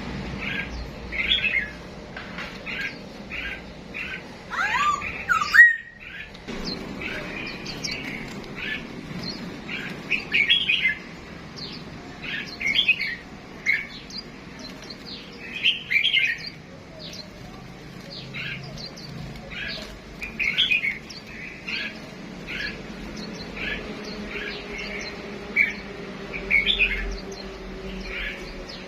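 Caged songbirds chirping and squawking in short, repeated calls about once a second, with a louder falling call about five seconds in.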